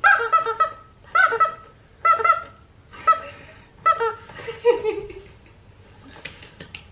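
Squeaker in a plush dog toy squeaking as a golden retriever puppy bites and chews it: six short bursts of quick high squeaks over about five seconds, then a few faint clicks near the end.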